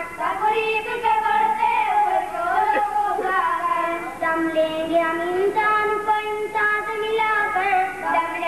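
A child singing an Urdu tarana (a religious-patriotic anthem) into a microphone. It is a single melodic line with long held notes that glide from one pitch to the next.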